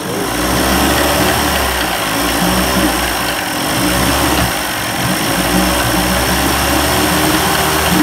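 1990s 30 hp Evinrude two-stroke outboard running cold, missing a bit: the uneven running of its lean condition, the 'lean sneeze'. Its level dips briefly about halfway through.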